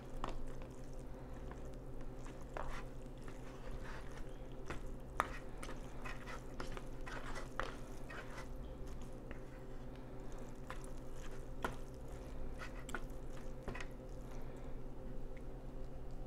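A fork stirring and scraping wet noodles and broth in an instant noodle cup: small liquid squishes and scattered light clicks of the fork against the cup, over a steady low background hum.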